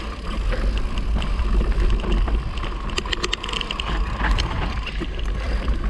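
Mountain bike rolling along a dirt and dry-leaf trail: a steady low rumble of wind and tyre noise, with a quick run of rattling clicks from the bike about three seconds in.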